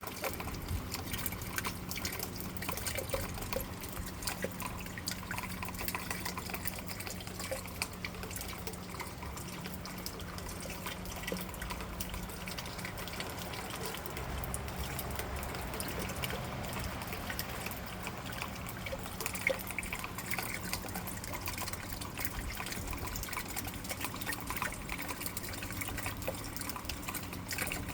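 Hail falling: a dense, steady patter of many small ice pellets striking, like heavy rain with sharper ticks.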